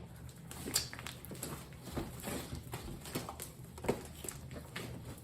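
Faint, irregular soft clicks and taps, roughly one a second, over a low steady hum.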